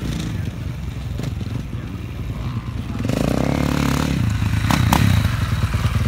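Husqvarna dirt bike engine running with a low, pulsing beat, rising in revs about three seconds in as the bike rides up. A few sharp knocks come near the end.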